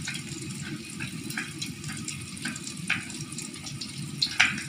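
Knife slicing small chilies on a wooden cutting board: quick, irregular taps, about two or three a second, with a louder knock near the end. Under it, the steady sizzle of garlic and shallots frying in a wok.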